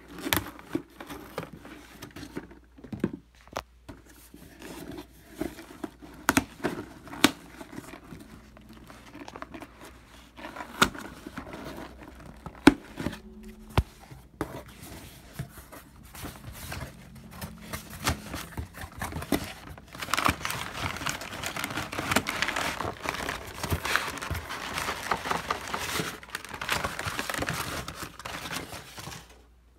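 Packing tape being picked at and torn off a cardboard box, with scattered sharp snaps and scrapes as the flaps are worked open; from about two-thirds of the way in, brown packing paper crumpling and rustling continuously as it is pulled out.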